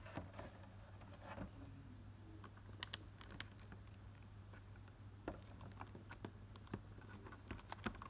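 Foil Pokémon booster pack and clear plastic packaging tray handled by hand: faint scattered clicks and crinkles, with a small cluster about three seconds in and more near the end as the pack is lifted out.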